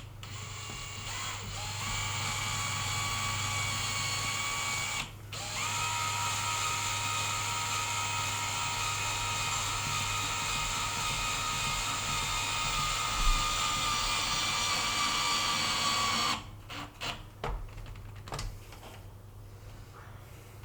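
Power drill running in steady spells: it starts, stops briefly, restarts and runs on for about ten seconds, then stops, followed by a few light knocks.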